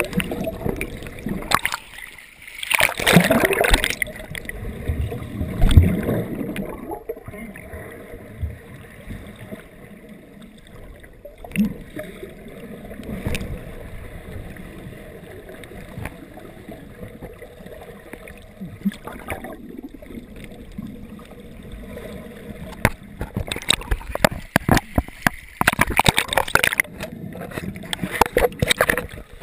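Underwater water noise heard through a GoPro's waterproof dive housing while snorkelling: muffled rushing and bubbling from swimming strokes, loud in the first few seconds and again in the last several seconds, with quieter water noise and scattered clicks between.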